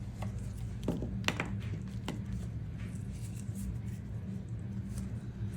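A few sharp clicks and taps, about one to two seconds in, as small objects are handled, over a steady low hum.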